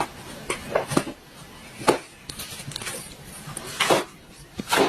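A series of sharp knocks and clatters, about seven, irregularly spaced.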